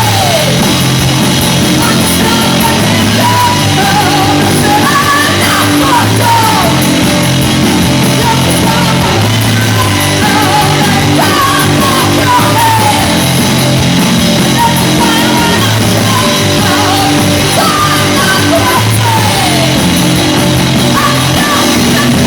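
A punk rock band playing live at full volume, with singing or shouted vocals over guitars.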